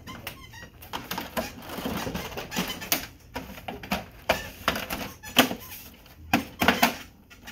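Plastic side cover of an HP Color LaserJet printer being worked onto the chassis: irregular clicks, knocks and scraping as its edges and tabs are pushed into place, with the sharpest snaps in the second half as it is pressed home along the top.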